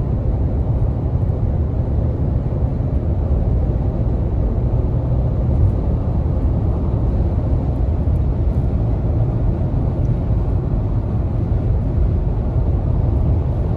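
Steady low rumble of a car driving on the road.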